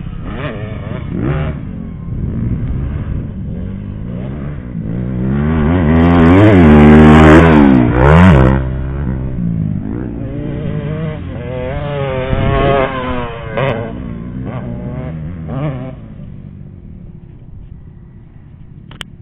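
Off-road racing engines revving up and down through their gears, one passing close and loudest about seven to eight seconds in, then fading to a distant rumble near the end.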